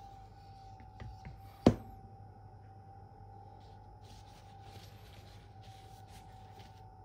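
A sharp knock about a second and a half in, then a run of short, light scraping strokes near the end: a K390 steel Spyderco Endura blade being drawn across a Venev F1200 stone, the final stone, used to deburr and polish the edge. A faint steady tone runs underneath.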